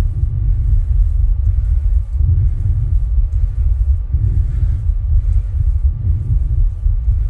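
A person's heartbeat picked up through a body-contact microphone under a heavy low rumble, beating about once a second, recorded while rebreathing from a plastic bag.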